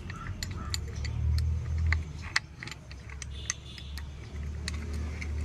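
Small metal tools and parts clinking and tapping in short irregular clicks as a replacement brake rod part is fitted into a tractor's brake assembly, over a steady low hum.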